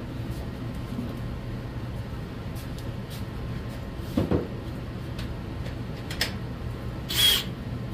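Steady low hum with scattered light clicks and a knock as a cordless drill's dead battery pack is swapped for a fresh one. A short burst of noise comes near the end.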